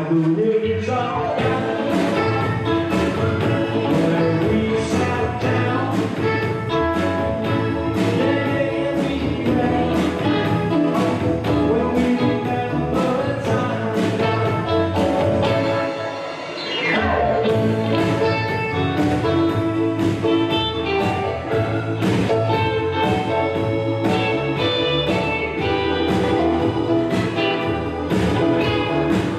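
Music with singing over a steady beat. It dips briefly about sixteen seconds in, then comes back in full.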